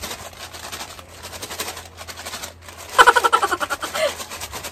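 A paper fries bag holding fries and honey butter seasoning powder being shaken hard to coat the fries: a fast, rhythmic paper rustle with the fries knocking inside. About three seconds in, a brief laugh rises over it and is the loudest sound.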